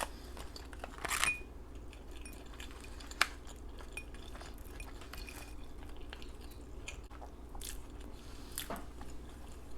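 A person chewing fast food close to the microphone, with soft wet mouth sounds and a few sharp clicks; the sharpest click comes about three seconds in.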